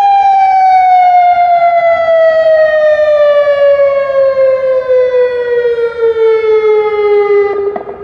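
Tsunami warning siren sounding one long, loud tone whose pitch slides slowly downward, then cuts off suddenly near the end.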